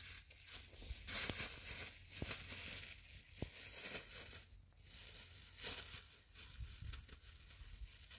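Thin plastic bag crinkling and rustling in irregular bursts as it is handled, with a few sharp clicks.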